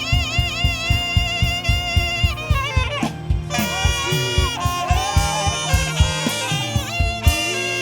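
Live saxophone playing an ornamented worship melody, with quick wavering turns on its notes, over a band keeping a steady drum beat. The melody breaks off briefly about three seconds in and then goes on.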